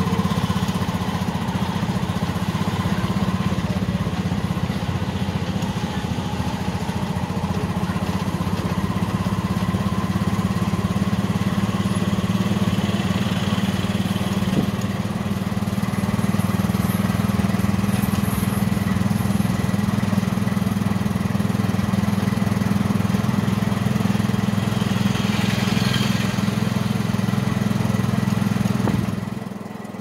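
Vehicle engine running steadily with road traffic going by. The level dips briefly near the end.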